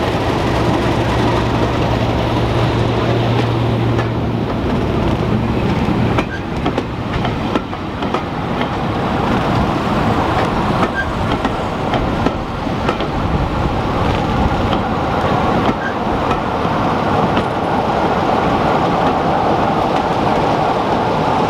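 A diesel-hauled passenger train passing close below. First comes the steady low note of the lead BR green English Electric Class 37 diesel locomotive's engine as it passes. After about six seconds the coaches follow, rumbling with clicks of wheels over rail joints, and a second diesel locomotive at the rear of the train comes by near the end.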